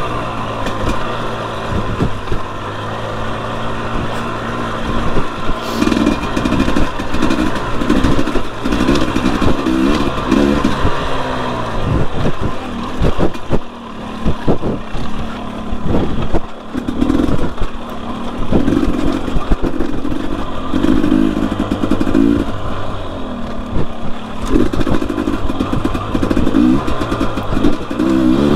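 2021 Husqvarna TE250i's 250 cc single-cylinder two-stroke engine under way on a dirt bike, revving up and falling back again and again as the throttle is worked, with the throttle shut off briefly twice about halfway through. Occasional knocks and clatter from the bike sound over the engine.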